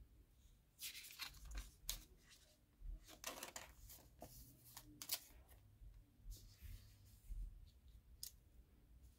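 Faint handling of glossy photo prints: a card slides and is set down among others on a table, giving a scattered run of short paper rustles and light taps.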